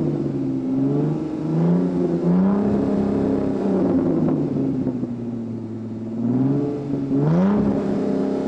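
Supercar engine revving, its pitch climbing and falling back several times, with a quick, steep climb about seven seconds in.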